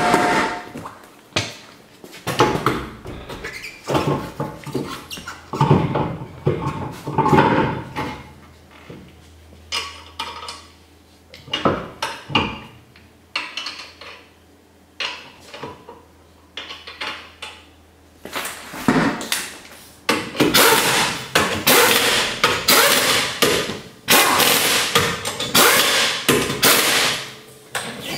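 Metal clanking, knocking and rattling of hand tools and wheel hardware during a quick tire change, with sharp knocks scattered throughout. The clatter grows denser and louder from about two-thirds of the way in.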